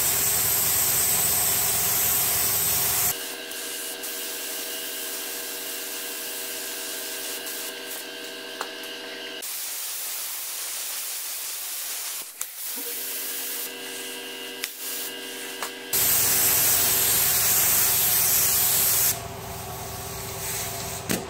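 Paint spray gun hissing as it lays on filler primer, in two long passes of about three seconds each: one at the start and one about three-quarters of the way in. Between the passes there is a fainter steady hum with a few fixed tones.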